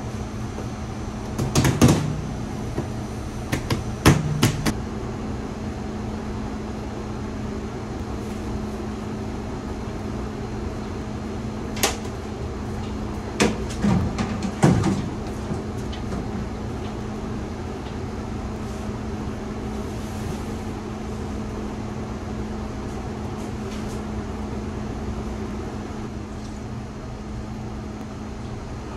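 Steady hum of bakery kitchen machinery, with a few sharp knocks and clatters of things being handled in the first half, then only the hum.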